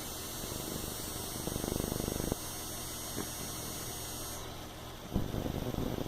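A beagle snoring: a fluttering, rattling snore breath about a second and a half in and another starting about five seconds in, with a steady low hum between them.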